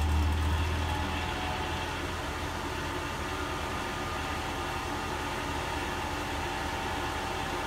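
Motor of a vintage ceiling-mounted bathroom heater fan running with a strong low hum, a rushing fan noise and a thin high whine that drifts slightly lower. The fan motor's bearings are worn.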